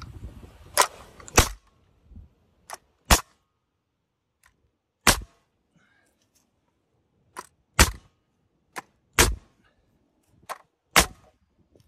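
Metabo NR90 pneumatic framing nailer firing 3-inch nails into a 2x4. It goes off with a sharp bang about seven times, one every second or two, and several shots have a faint click just before them.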